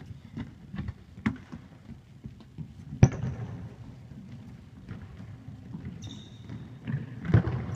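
A football kicked and bouncing on a sports hall floor, with several sharp thuds of the ball being struck and players' footsteps in between. The loudest kick comes about three seconds in and rings on in the hall's echo, and another cluster of knocks comes near the end.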